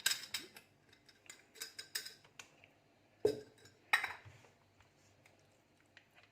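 Irregular clinks and knocks of a kitchen utensil against a glass jar as a thick blended paste is transferred into it, with two louder knocks a little past the middle.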